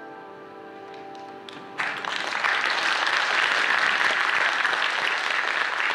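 The held final chord of a mixed choir with piano fades away, and about two seconds in the audience breaks into sustained applause.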